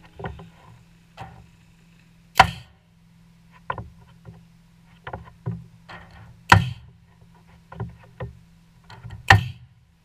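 Pneumatic framing nailer fired three times into wooden eave boards, three sharp shots about three to four seconds apart. Lighter knocks and taps come between the shots.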